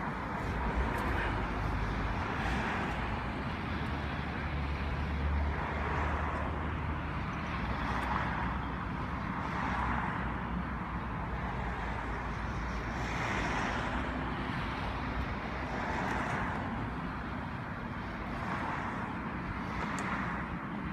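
Cars driving along a road one after another, the sound swelling and fading every couple of seconds as each goes by, over a low rumble that is strongest in the first few seconds.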